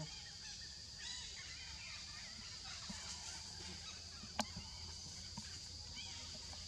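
Outdoor ambience: a steady high-pitched hum with many short, scattered calls, and one sharp click about four and a half seconds in.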